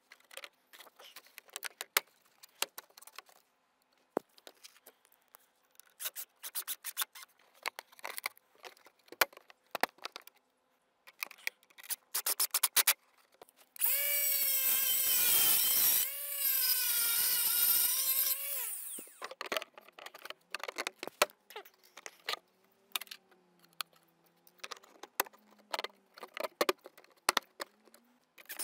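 Scattered clicks and taps of plastic dry verge units being handled and fitted. About halfway through, a cordless drill-driver runs twice for a couple of seconds each as it drives a screw in, its whine dipping under load, then winds down.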